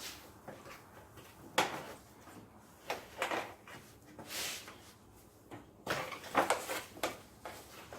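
Catch-can hoses being handled and fed under an engine-bay fuse box: a handful of short, irregular scrapes, rustles and light knocks of hose and plastic rubbing against parts.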